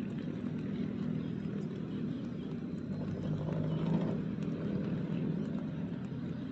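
A motor engine running steadily, a low droning hum that swells a little three to four seconds in.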